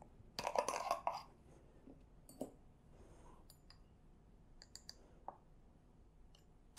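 A small glass spice jar being opened: a short scraping twist of its metal screw lid, then a few light clicks and taps as the lid is set down in a glass dish and a spoon dips into the turmeric.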